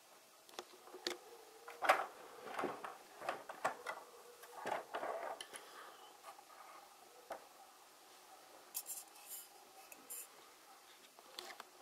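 Plastic building-block toy truck and trailer being handled, with light clicks and knocks of plastic pieces against each other and the wooden tabletop, busiest in the first half. A few short, high scraping sounds come near the end.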